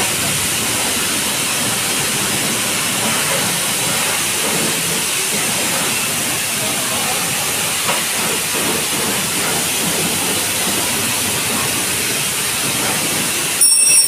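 High-pressure washer jet spraying water onto a motorcycle: a steady hiss of spray. A brief high-pitched ring at the very end.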